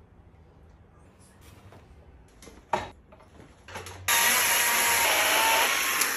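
Chainsaw cutting into a block of alligator juniper, starting abruptly about four seconds in and running loud and steady. Before it, a low quiet stretch broken by one sharp click.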